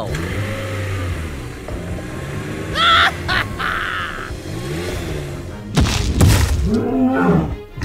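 Background music, with a short rising whistle-like effect about three seconds in and a rougher, noisier stretch near the end.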